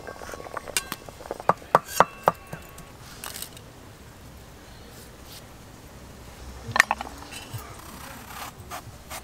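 Several sharp clinks and taps in the first two seconds or so as boiled potatoes are ladled out of a metal pot into a clay bowl. Near the end comes a short burst of cutting taps as an aubergine is sliced on a boti, a curved floor-mounted blade.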